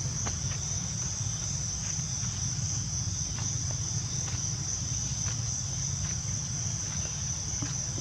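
Steady high-pitched insect chorus, one unbroken shrill tone, over a low rumble, with a few faint ticks scattered through.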